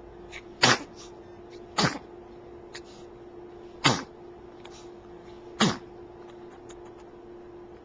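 Four short, sudden sneezes, one to two seconds apart.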